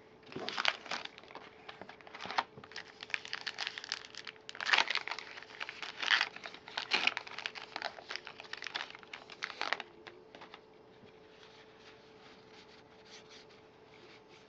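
Baseball card pack wrapper being torn open and crinkled by hand for about ten seconds, then dying down to a few faint ticks of cards being handled.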